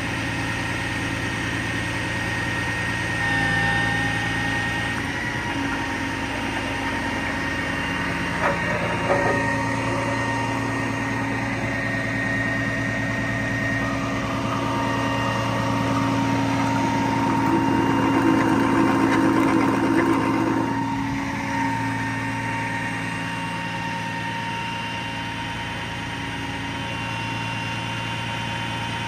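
Heavy truck's Caterpillar diesel engine running and driving the hydraulics of a tire manipulator as its arms and clamp are raised. Steady whining tones shift in pitch several times as different functions are worked, with a couple of short knocks about eight to nine seconds in.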